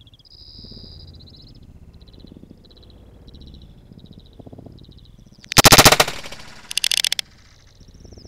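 Two shotgun shots about a second apart, a little past halfway, the first louder, fired at a bird in flight. Faint high chirping calls repeat before them.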